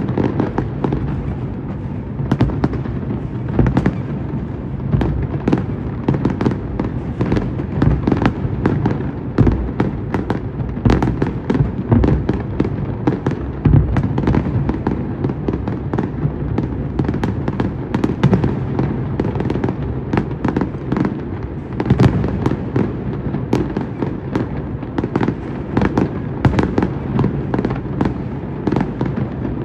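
A fireworks display: a continuous barrage of bangs and crackling reports, many overlapping each second, over a steady low rumble.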